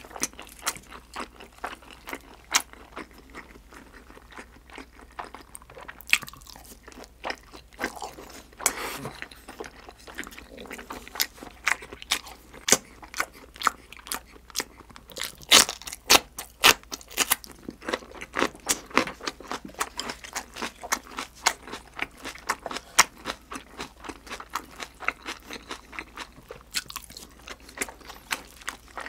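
Close-miked chewing of sauce-glazed grilled freshwater eel and a raw green chili pepper: a steady run of wet mouth clicks and crunches. The loudest, sharpest crunches come about halfway through.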